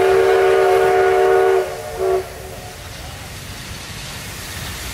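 A locomotive's multi-tone chime sounding one long blast that cuts off about a second and a half in, followed by a short second toot. Afterwards a lower, steady rumble of railway-yard noise continues.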